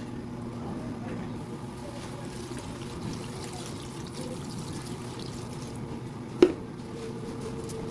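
Liquid pouring and trickling steadily, with one sharp knock about six and a half seconds in.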